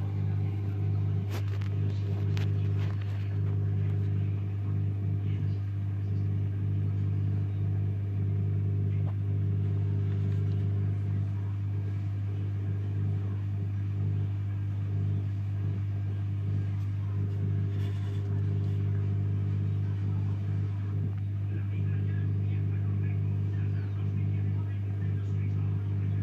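Low, steady hum of a reef aquarium's pump, picked up close to the tank glass, with a few faint clicks in the first seconds.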